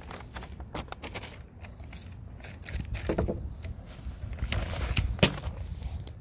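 Sheets of paper rustling as they are handled close to the microphone, with scattered sharp knocks and bumps, heaviest about three seconds in and again near the end.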